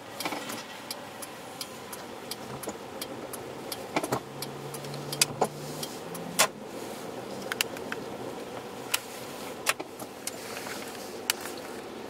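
Steady hum inside a car waiting in stalled traffic, with irregular sharp ticks scattered throughout and a faint low hum from about four to six seconds in.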